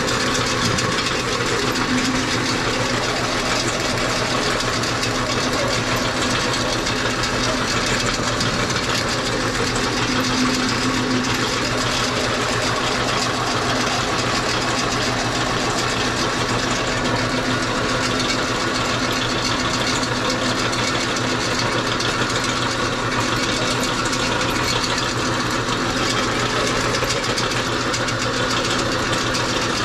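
Belt-driven meat grinder running steadily under power, grinding raw pork; a constant motor hum with a light rattle.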